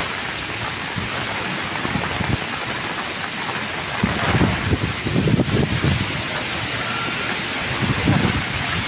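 Heavy typhoon rain pouring onto the road and drumming on an open umbrella. Gusts of wind buffet the microphone in low rumbles from about four to six seconds in and again near the end.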